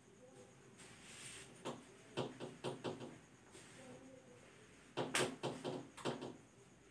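Whiteboard being wiped clean with a duster: short rubbing strokes in two bursts, the first about two seconds in and the second about five seconds in.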